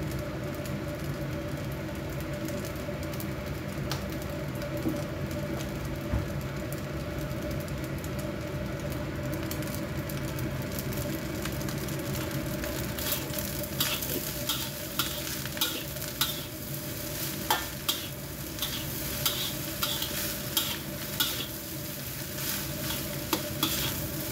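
Fried rice sizzling in a wok; from about halfway through, a metal spatula scrapes and clacks against the wok as the rice is stir-fried.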